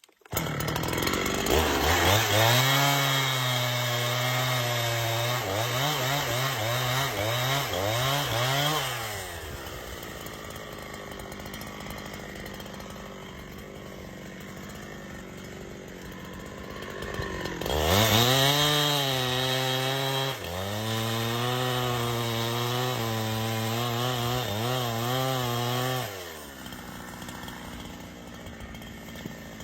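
Chainsaw cutting through a log: the engine runs at high revs, its pitch sagging and recovering under load through the cut, then drops back to idle. A second cut follows about halfway through, then it idles again.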